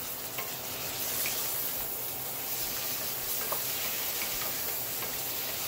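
Chicken liver and gizzard sizzling in hot oil in a stainless steel pot as they are stirred, a steady hiss with a few faint clicks of the spoon against the pot.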